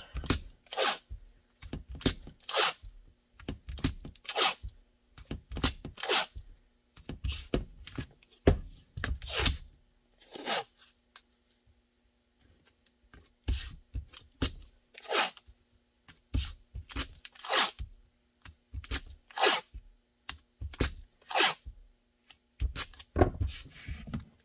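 Blue painter's tape ripped off the roll and torn into strips, then pressed down by hand: a string of short rips about every second, with a brief lull about halfway through.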